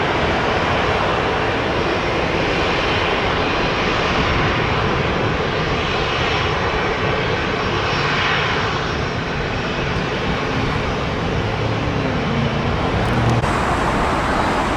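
Jet airliner flying low on approach, its engines making a steady, loud rush of noise.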